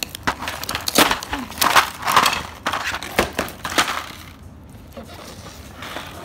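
Clear plastic wrapping crinkling and rustling as it is handled and pulled off a plastic toy bathtub, in a run of irregular crackles with sharp snaps. It dies down about four seconds in.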